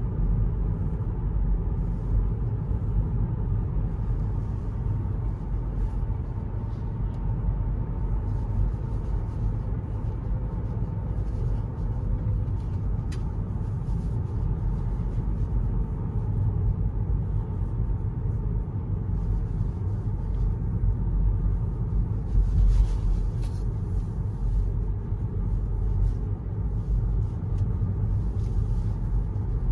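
Hyundai Ioniq 6 electric car being driven, heard from inside the cabin: a steady low rumble of tyres and road with no engine note, a faint steady tone over it, and a slightly louder bump about three quarters of the way through.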